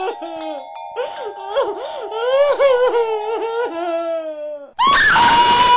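A voice making wavering, up-and-down sounds like laughter over a steady background tone. About five seconds in, a loud siren-like wail cuts in suddenly, rising and then holding.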